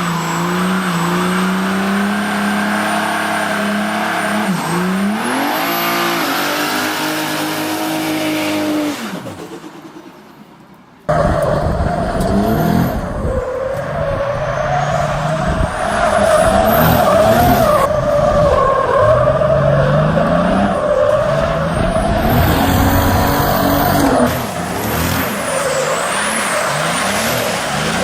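A turbocharged Mercedes OM606 diesel engine in a performance car revving hard, its pitch repeatedly rising and falling through the gears, with tyres squealing. The sound fades about nine seconds in and cuts to a second loud revving run about eleven seconds in.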